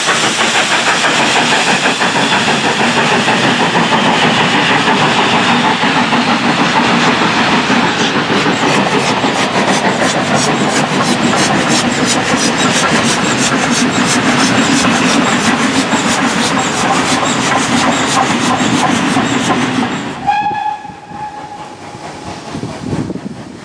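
Steam-hauled trains passing close by: a heavy rush of noise, then from about a third of the way in a fast, even clickety-clack of wheels over rail joints. Near the end the train noise drops away and a steam locomotive whistle sounds once for about a second and a half, from a GWR 57xx pannier tank approaching a whistle board.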